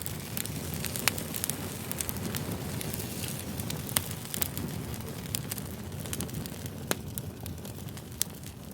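Wood campfire burning: a steady low rush of flames with frequent sharp crackles and pops, a few louder pops standing out about one, four and seven seconds in.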